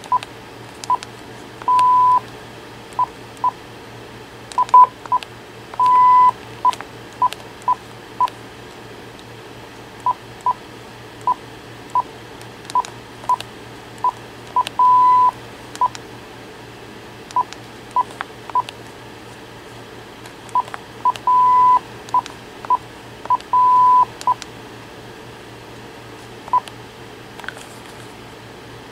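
Uniden Loud & Clear DECT 6.0 cordless handset giving key beeps as its buttons are pressed through the menus: many short single-pitch beeps at an uneven pace, with several longer beeps scattered among them.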